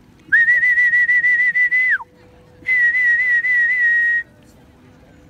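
A whistle blown in two long warbling blasts, each about a second and a half, calling racing pigeons down to their loft.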